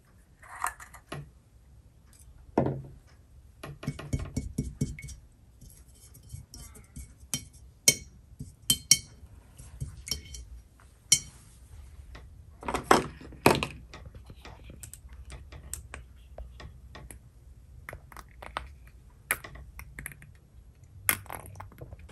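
Irregular light clinks, taps and knocks of paint jars, tools and a brush against paint dishes as paints are set out and yellow is mixed into white; some clinks ring briefly.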